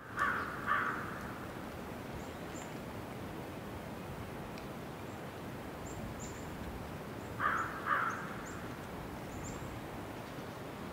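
Crow cawing in two quick pairs, one near the start and one about seven and a half seconds in, over a steady outdoor hiss with faint high chirps of small birds.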